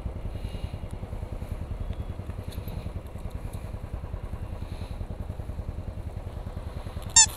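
Royal Enfield single-cylinder engine idling with a steady, quick thump. Near the end a series of short, high squeaks starts.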